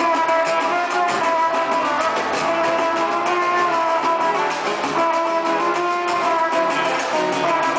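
Samba-rock music, guitar-led with held melodic notes over steady percussion.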